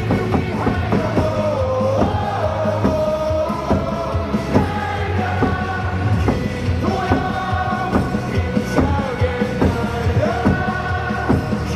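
Baseball fans' cheer song for the batter: loud amplified music with a steady beat and a crowd singing along.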